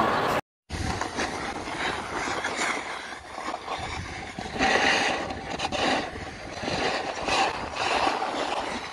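After a brief drop-out to silence just after the start, snowboards slide and scrape over a packed snow slope, with rushing wind on the phone's microphone as it is carried down the run; the noise swells and fades unevenly.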